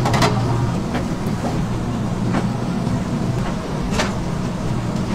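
A metal spoon clinking and scraping against a stainless steel food pan a few times as sauce is scooped and spread, over a steady low background hum.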